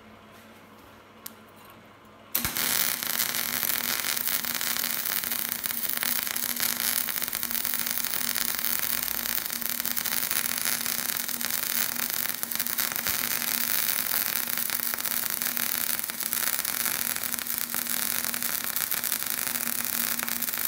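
Welding arc of an old Elektra Beckum MIG welder burning self-shielded flux-cored wire without shielding gas: a steady, dense crackle that starts abruptly about two and a half seconds in and holds even. The even arc is a sign that the settings are right, which the welder judges it to be.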